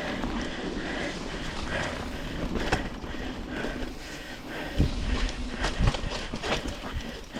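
Mountain bike rattling down a rocky trail: irregular knocks and clatter over a steady rush of wind and tyre noise, with a few heavier thumps about five seconds in.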